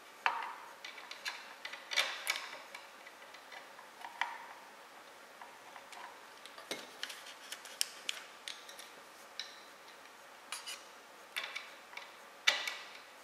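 Irregular small clicks and taps of hand work on the 3D printer's aluminium frame: a screwdriver turning a small adjustment screw while the nozzle height is being set. The loudest clicks come just after the start, about two seconds in and near the end.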